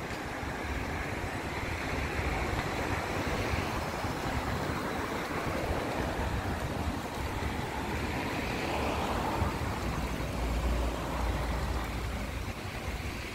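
Street traffic noise: a steady wash of vehicles passing, swelling and fading, with a deeper low rumble about ten seconds in.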